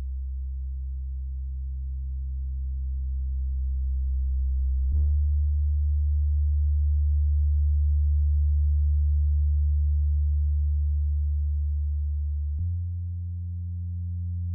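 Low electronic drone of steady pure tones, shifting abruptly to new pitches about five seconds in and again near the end, with a brief click at the first shift.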